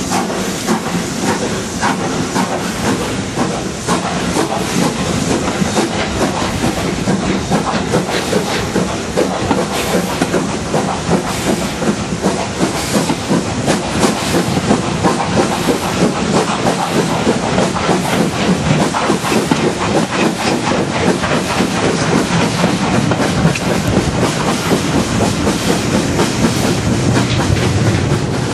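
Exhaust beats of the two-cylinder BR Standard Class 7 'Britannia' Pacific 70013 'Oliver Cromwell', working hard to get a nine-coach train away from a station. The sound is heard through an open coach window, with steam hiss and wheels clattering on the track. It runs loud and steady, growing a little louder towards the end.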